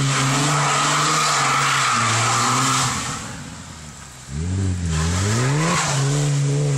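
A car engine held at high revs while drifting round a wet roundabout, with tyre noise beneath it. About three seconds in the revs drop away, then climb back up and hold high again.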